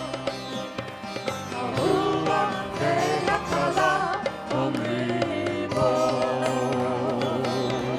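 Live worship music from a band: a wavering melody line over sustained chords with a steady beat.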